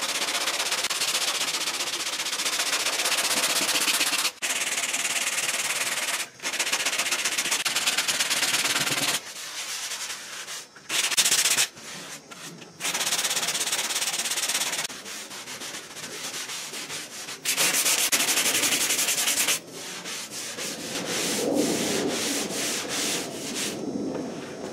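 Hand block sanding of cured body filler on a car fender: sandpaper on a sanding block rasping over the filler in quick back-and-forth strokes. It stops briefly a few times and is softer near the end.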